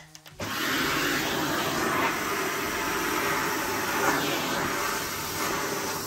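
Shark NZ850UKT corded vacuum cleaner switched on about half a second in, then running steadily in powered lift-away mode as its upholstery tool is worked over fallen pine needles.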